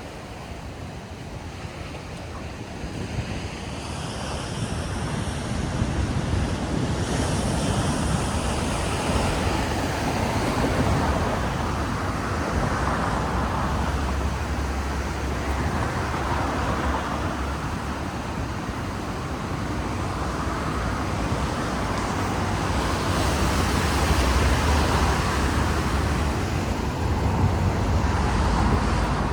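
Coastal outdoor ambience: a continuous rushing noise that swells and fades every few seconds, from waves and passing road traffic together, with some wind on the microphone.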